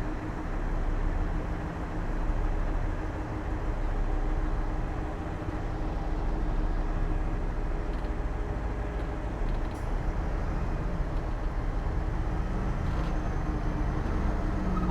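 Heavy diesel earthmoving machinery running steadily, a continuous low engine rumble with a steady hum. A faint click or knock comes near the end.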